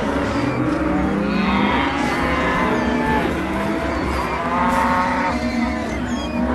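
Cartoon stomach-growling sound effects: long, low, pitched groans that bend up and down in pitch, several of them overlapping one after another.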